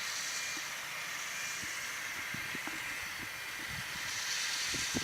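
Welsh Highland Railway steam train approaching: a steady hiss, with a few faint low thumps in the second half.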